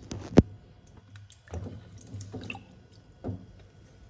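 Water splashing and dripping in a stainless steel bowl as a hand lifts peeled taro pieces out, with a sharp knock against the bowl about half a second in and a few smaller splashes after.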